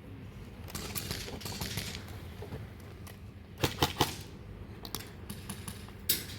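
Airsoft guns firing: a quick cluster of sharp clacking shots a little past the middle and single shots near the end, after a stretch of rustling movement noise.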